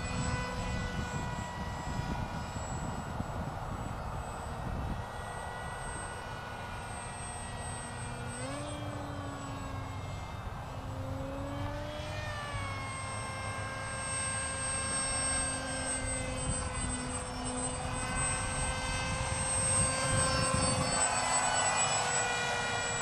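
Electric RC airplane in flight: an EMax CF2805 brushless outrunner motor spinning a GWS 5043 propeller, a steady whine of several tones together. The pitch swoops up and down a few times midway, and the sound swells louder near the end.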